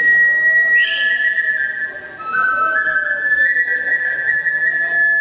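Kagura bamboo transverse flute playing: one high note held, then from about a second in a short melody stepping down a few notes and climbing back to the high note.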